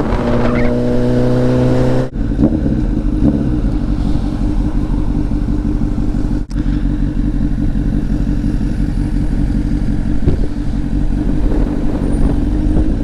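Honda CBR1000RR's inline-four engine running steadily while riding, heard over road and wind noise. The sound drops out briefly about two seconds in and again about six and a half seconds in, and the engine note rises slightly near the end.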